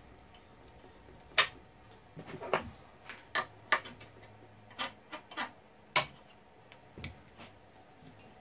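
Irregular metal clicks and clinks from a manual tool change on a mini mill, as tool holders and hand tools are handled. The sharpest knocks come about a second and a half in and about six seconds in.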